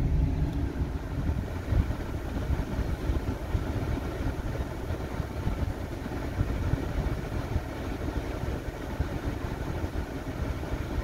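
GM pickup truck's engine idling steadily, heard from inside the cab with the A/C blower running.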